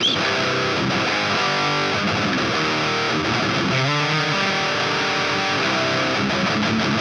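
Heavily distorted electric guitar played through the Klirrton Grindstein plugin's chainsaw channel with the grind knob at zero, so no HM2-style blend is in the tone.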